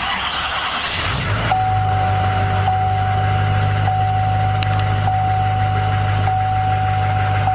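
A 2003–2006 Chevy 6.6 L Duramax V8 diesel starting with a rough rush for about a second, then settling into a steady idle. A steady high whine runs over the idle.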